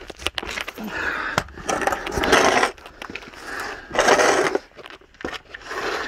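A person crawling through a low crawl space: bursts of scraping and crackling as a body and clothing drag and shuffle over the gritty floor, in several spells with short pauses between.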